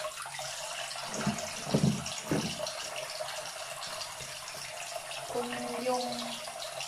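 Water running from a bathroom sink faucet while soapy hands are rubbed and rinsed in the stream, a steady splashing hiss with a few low bumps about two seconds in.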